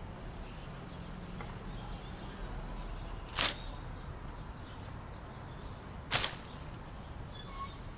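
Two brief swishes, about three seconds apart, over a steady low background noise.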